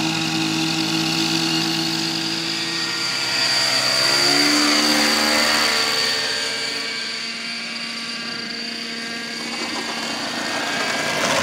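Radio-controlled model airplane's engine running with a high whine as the plane flies past. The engine grows louder and its pitch drops as it passes about four to five seconds in, then the sound eases off and builds again near the end.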